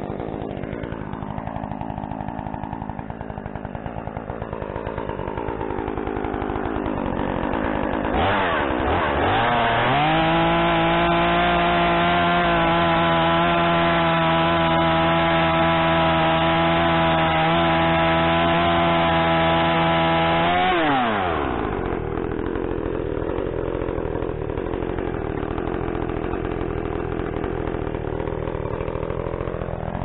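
BlueMax gas chainsaw running at low revs, then opened up at about eight seconds to a steady high-pitched full-throttle whine held for some twelve seconds, then dropping back to idle.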